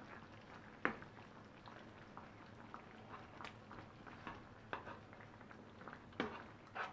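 A spoon stirring chicken in a simmering sour-cream and garlic sauce in a non-stick frying pan: a few soft clicks and scrapes of the spoon against the pan over faint bubbling.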